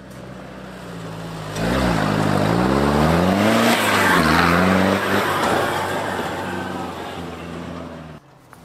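An off-road 4x4's engine revving hard, its pitch rising and falling with the throttle. It swells sharply about a second and a half in, is loudest around the middle, then fades and cuts off abruptly near the end.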